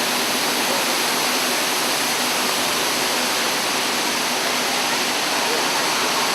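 Large artificial waterfall pouring down: a steady, unbroken rush of falling water.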